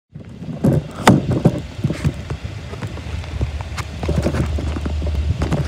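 Irregular knocks and crunches close to the microphone, the loudest about a second in, over a low steady rumble that grows stronger about three seconds in.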